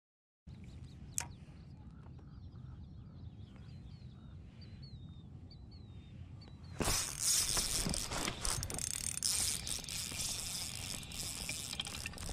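A sharp click, then a bird calls a quick run of short, high chirps. About seven seconds in, a spinning reel starts being cranked: a loud whirring rattle of clicks that carries on.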